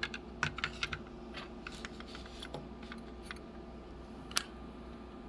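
Small metal clicks and rattles from a CX-5 (MARKS/Scorpion) high-security lock cylinder as a key is worked in it to lock it back up. A quick flurry of clicks comes in the first second, then scattered light ticks, then a single sharp click about four and a half seconds in.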